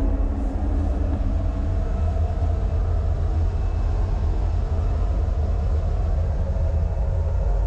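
Steady low drone of a ship's engine-room machinery, heard from inside an incinerator's firebox, with a few steady hums above the rumble.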